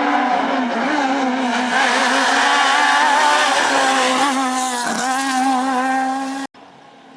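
Renault Clio S1600 rally car's 1.6-litre four-cylinder engine running loud at high revs, its pitch wavering, with a brief dip about five seconds in. It cuts off abruptly near the end and a quieter engine sound takes over.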